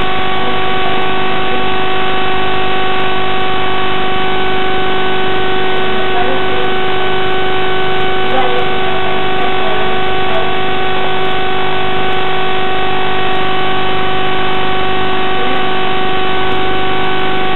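A loud, steady droning tone that holds one pitch without change, with a faint voice barely showing beneath it.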